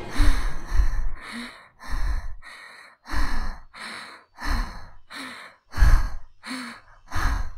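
A girl sobbing into her hands: a run of about a dozen short, breathy, gasping sobs, roughly two a second, some with a brief voiced catch, cutting off abruptly near the end.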